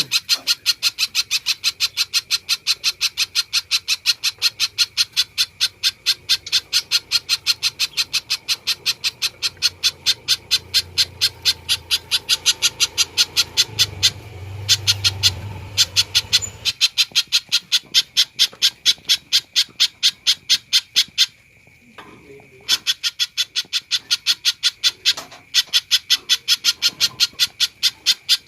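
Spiderhunter (pijantung) calling vigorously, a sharp, high note repeated steadily about three times a second, with one pause of about a second some twenty seconds in.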